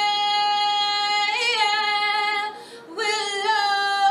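A woman singing: a long held note that breaks into a wavering, bending run about a second in. After a short pause she starts a new phrase.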